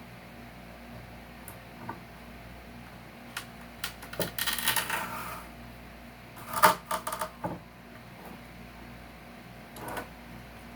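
A hand tool pulling staples and nails out of salvaged couch wood: a scrape about four seconds in, then a quick run of sharp metallic clicks about a second and a half later, and a single click near the end.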